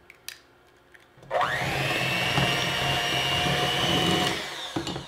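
Electric hand mixer switched on about a second in, its motor whining up to speed and then running steadily for about three seconds as the beaters mix an egg into creamed butter and sugar. It then winds down near the end.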